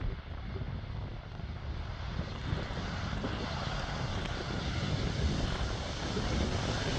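Jet engines of a KLM twin-engine airliner moving along the runway: an even, rushing jet noise that grows louder from about two seconds in.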